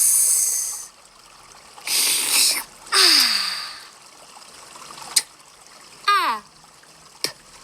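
Cartoon sound effects: three loud, short hisses in the first four seconds, the last ending in a falling tone, then a click, a quick squeaky up-and-down glide and another click.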